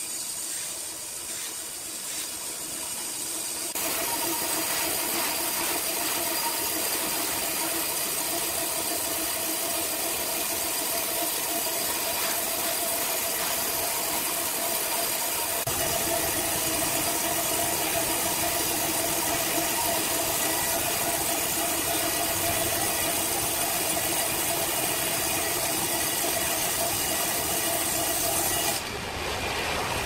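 Large horizontal band sawmill running, its blade cutting through a log: a steady hum with a continuous hiss. It grows louder a few seconds in and drops back shortly before the end.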